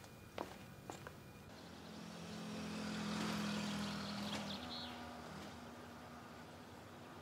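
A motor vehicle passing: a steady engine hum that swells to its loudest about halfway through and then fades away.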